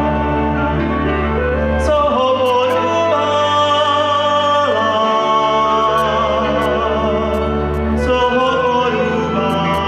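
Cimbalom band of violins, clarinet, cimbalom and double bass playing a Moravian folk song, with a man singing the melody over it. The double bass holds long notes that change about every three seconds.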